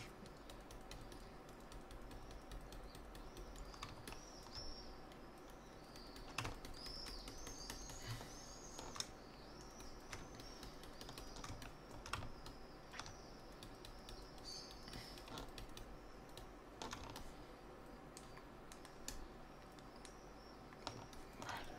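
Faint, irregular clicks of a computer keyboard and mouse, a few every second or two.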